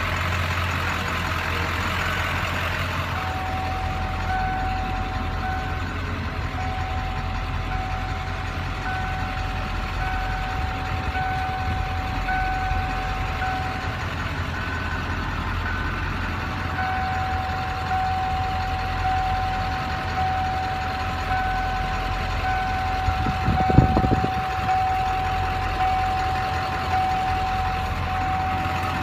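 Ford 7.3 Powerstroke V8 turbo-diesel idling steadily, heard from inside the cab, while a dashboard warning chime beeps on and off about once a second. There is a brief pause in the beeping, and a single thump about three-quarters of the way through.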